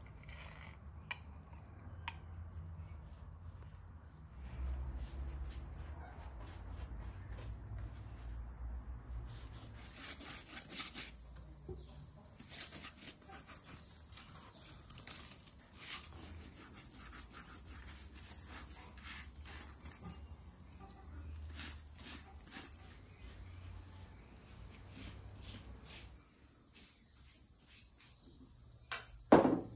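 Insects trilling steadily at a high pitch, starting a few seconds in and growing louder, with a louder stretch about three quarters of the way through. Scattered light clicks and taps of kitchen utensils, and a sharp knock near the end.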